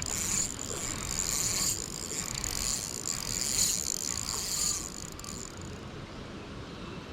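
Shimano 18 Stella spinning reel being cranked to retrieve a spoon, a steady high gear whir that stops about five and a half seconds in. Low wind rumble underneath.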